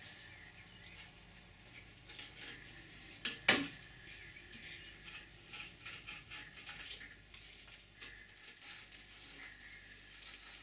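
Faint metallic clicking and scraping of a small hand tool being worked against a small container, with one sharper click about three and a half seconds in.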